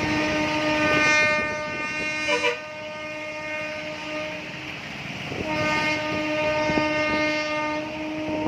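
A horn sounding two long steady blasts, the first about four seconds and the second about three seconds after a short pause, with a brief double toot at a higher pitch in the middle of the first blast, over a steady rushing noise.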